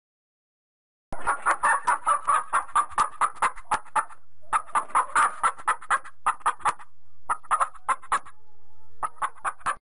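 Chickens clucking and cackling in quick, repeated calls, with a short pause twice. The calls start about a second in and cut off suddenly just before the end.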